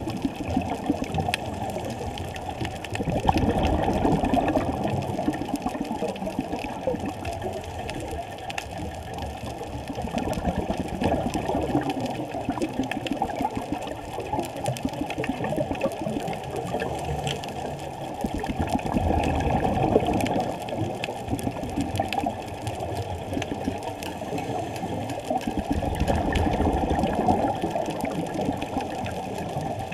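Muffled underwater noise heard through a GoPro's waterproof housing, swelling every seven or eight seconds with the diver's scuba breathing and the bubbles of each exhale, with faint crackling over it.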